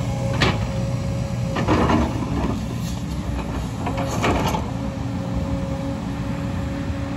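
JCB crawler excavator's diesel engine running steadily under load with a faint steady whine, while its bucket scrapes and rattles against rock and soil in three short bursts, about half a second, two seconds and four seconds in.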